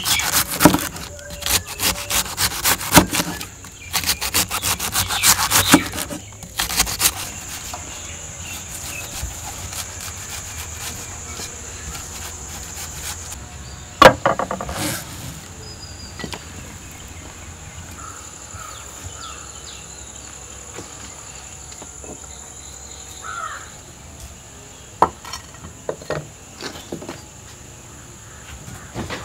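Large kitchen knife shredding cabbage on a wooden chopping block: quick chop after chop for the first six or seven seconds. After that a steady, high insect drone carries on, broken by a single sharp clack about halfway through as a ceramic plate is set down, and a few lighter knocks near the end.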